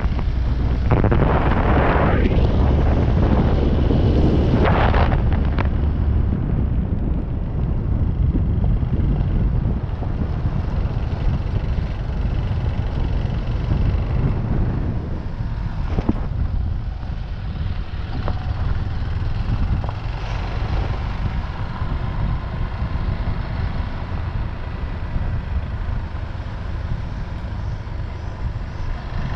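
Motorcycle riding along a gravel road: the engine runs steadily under a heavy rush of wind on the microphone and tyre noise from the loose surface. The wind rush is loudest in the first five seconds.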